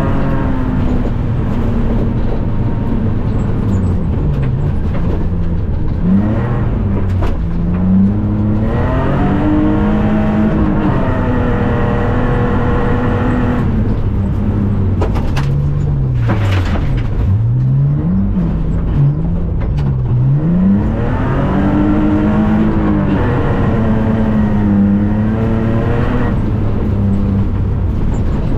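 Inside the cabin of a BMW E46 rally car on a gravel stage: the engine revs climb and drop back again and again through gear changes and lifts for corners, over steady tyre and road noise, with a few sharp knocks around the middle.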